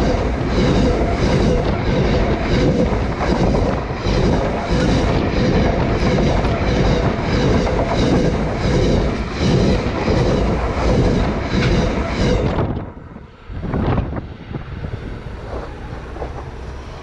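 KiwiRail coal train wagons rolling directly over a camera lying between the rails: loud wheel-on-rail noise with a regular clatter about twice a second. About thirteen seconds in the noise drops off sharply, leaving a much quieter rumble.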